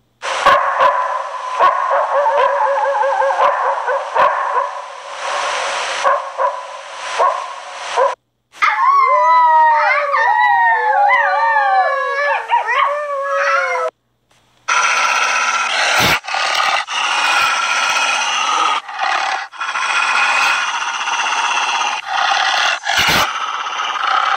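A pack of wolves howling together: many overlapping, wavering howls that glide up and down in pitch. The chorus is cut twice by a brief silence, and the last stretch has a few sharp clicks.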